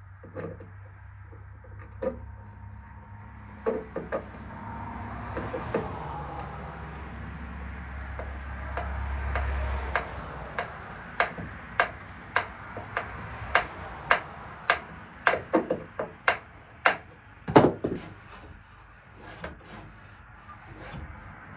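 Sharp knocks and taps of hand work on hardware, scattered at first over a low hum. From about halfway they settle into a fairly regular tapping, about two a second, ending in a louder double knock.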